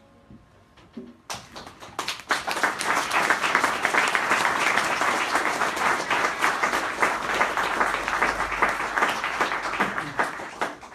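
Audience applauding: the clapping breaks out about a second in, holds steady and dies away near the end.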